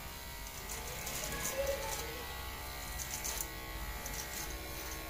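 A faint, steady electrical buzz made of many even tones, with a few faint wavering tones in the first two seconds.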